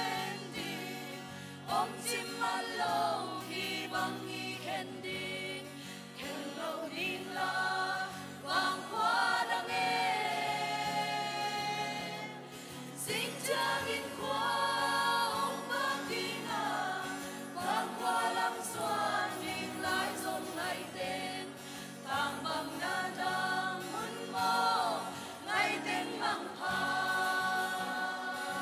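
Mixed choir of women and men singing a hymn in Zomi, in long held phrases.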